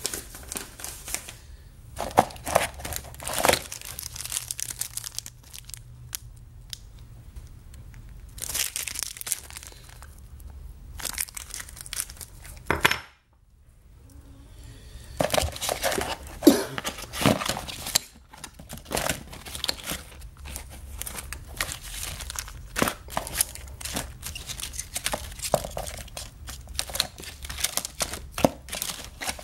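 Plastic coin flips and clear zip bags crinkling and clicking as silver rounds are handled and sorted by hand, in irregular bursts with a brief gap about halfway through.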